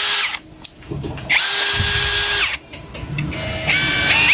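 Dongcheng cordless lithium-battery impact wrench motor test-run in trigger pulls: one run ends just at the start, then a run of about a second that winds up and down, then a few short stuttering pulls near the end. The tool starts and runs on its newly fitted original control board, the replacement for the board its fault had pointed to.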